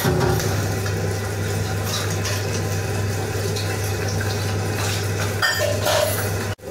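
Tabletop wet grinder running: its motor hums steadily while the granite stone rollers churn thick, wet rice-and-banana batter in the steel drum. The sound breaks off for an instant near the end.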